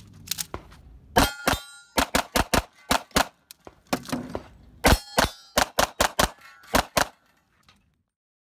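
Rapid pistol fire on a USPSA stage: about twenty shots in fast pairs and strings with short pauses, starting about a second in and stopping about seven seconds in. Some shots are followed by a brief metallic ring.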